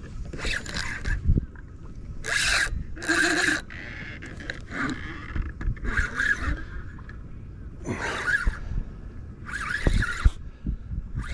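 Fishing reel working against a hooked snook during the fight, running in short rasping bursts about every second or two.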